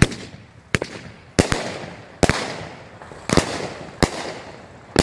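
A 21-shot, 500-gram consumer fireworks cake firing: about eight sharp reports at uneven intervals, a few in quick pairs, each followed by a fading hiss.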